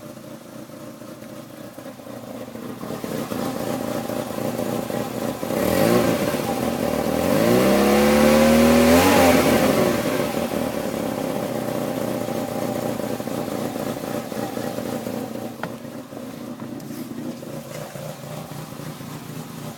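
Peugeot 306's 1.6 NFZ four-cylinder petrol engine running at a rough, lopey idle that sounds almost cammed, blipped once about six seconds in and dropping back to idle by about ten seconds. The owner suspects the cam timing belt went back on a notch or two off when the head gasket was replaced.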